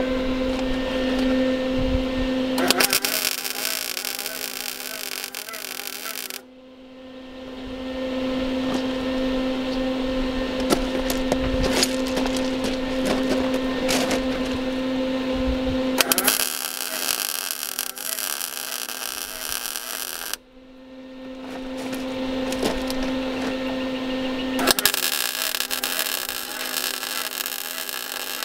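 Electric arc welding on a camper's steel tongue-jack mounting plate: three crackling weld runs of a few seconds each, every one cutting off suddenly. A steady electrical hum and scattered clicks carry on between the runs.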